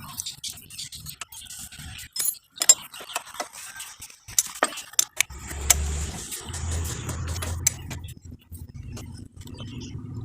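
Hand tools and small steel parts clinking and clicking irregularly while the rotor filter nut is fitted and tightened on a motorcycle engine. A low rumble runs for a few seconds midway.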